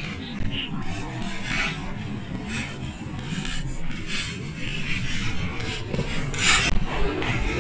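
Rubbing and scraping handling noise close to the microphone, with short rustles and a louder scrape about six and a half seconds in, as a gloved hand handles a freshly landed needlefish.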